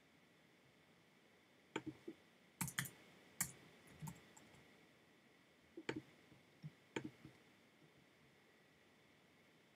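Computer keyboard keys and mouse buttons clicking irregularly in short groups, from about two to seven seconds in, as a formula is retyped.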